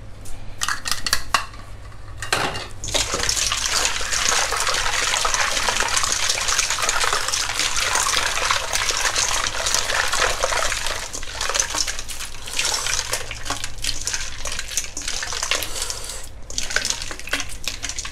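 Hands kneading and rubbing peeled shrimp in salted ice water in a stainless steel bowl: continuous sloshing and splashing with clinks against the metal bowl. A few sharp clicks in the first two seconds as more salt is tipped in, and the sloshing starts about two seconds in.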